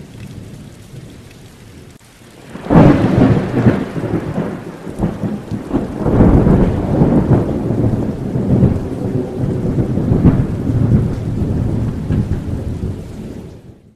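Thunderstorm sound effect under the intro logo: a low rumble of thunder with rain, then a sudden loud clap about three seconds in, followed by long rumbling peals that cut off abruptly near the end.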